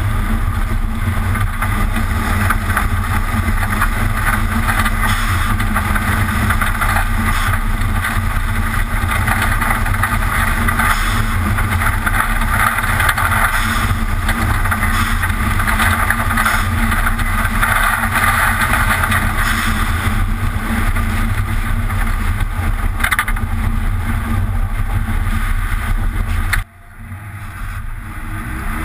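Subaru WRX STI's turbocharged flat-four engine running steadily under way, with tyre and wind noise, picked up by a camera mounted on the outside of the car. Near the end the sound drops away suddenly and builds back up.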